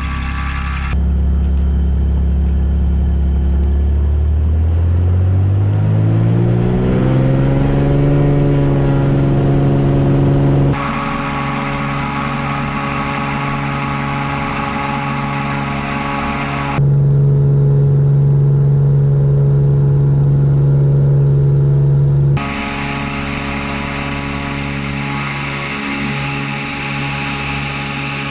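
Cessna 210 Centurion's six-cylinder piston engine and propeller coming up to full power for the takeoff roll: the pitch rises over a few seconds, then holds steady at takeoff power through liftoff. The sound shifts abruptly in character several times.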